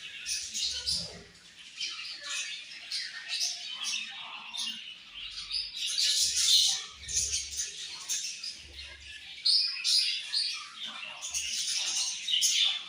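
A flock of budgerigars chirping constantly, with many short overlapping chirps and squawks. There are louder bursts about six seconds in and near the end.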